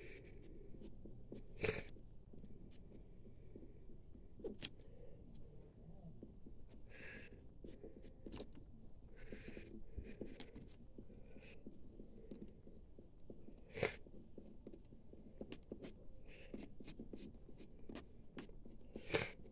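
Pencil scratching on paper in many short strokes, drawing blades of grass; faint, with a few sharper ticks scattered through.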